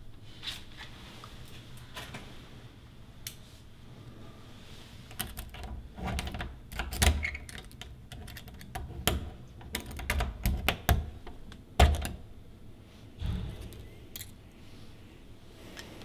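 A thin tool working in a door lock: small metallic clicks and rattles come in quick runs from about five seconds in, the sharpest near twelve seconds, followed by a softer knock.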